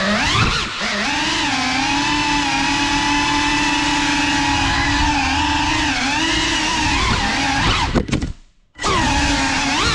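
GEPRC Cinelog 35 cinewhoop's brushless motors and propellers whining, the pitch rising and falling with throttle. Just after eight seconds the sound breaks up and cuts out for under a second, then the whine resumes.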